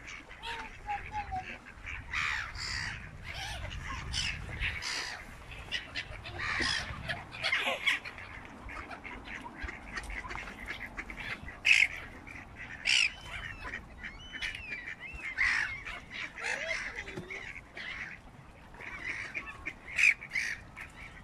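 A mixed flock of mallards, geese and black-headed gulls calling, with many short calls overlapping throughout and some gliding in pitch. A low rumble sits under the calls for the first five seconds.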